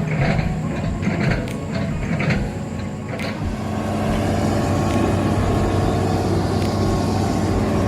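A motor engine running steadily, with a few sharp knocks and clatter in the first three seconds.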